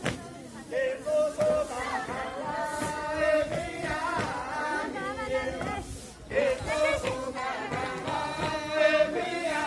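A group of voices singing a sustained melody, breaking off briefly about six seconds in and then going on.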